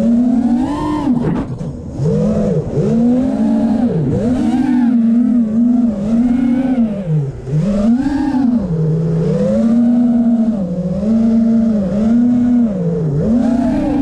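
Brushless motors and propellers of an Armattan Rooster FPV quadcopter whining, heard from its onboard camera. The pitch swoops up and down constantly with the throttle and drops sharply a few times.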